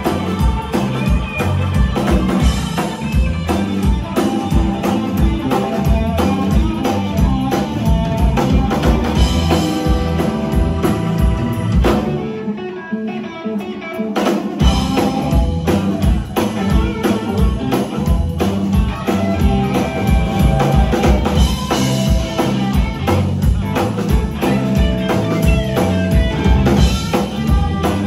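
Live blues band playing an instrumental passage, with drum kit, bass guitar and electric guitar keeping a steady beat. About twelve seconds in, the drums and bass drop out for roughly two seconds, then the full band comes back in.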